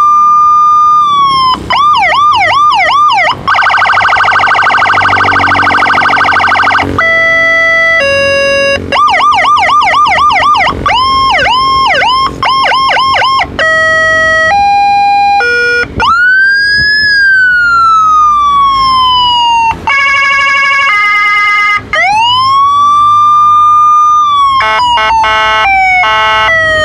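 Whelen WSSPA30 electronic motorcycle siren sounding loudly and cycling through its tones: a wail that rises and holds, a fast yelp, a harsh buzzing horn tone, two-pitch hi-lo alternations and a long falling wail. It ends with rapid stepped tones, with a short break each time the tone changes.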